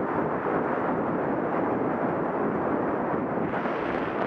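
Wind buffeting the microphone of a camera moving at speed along a road: a steady, dense rushing noise with no engine note standing out.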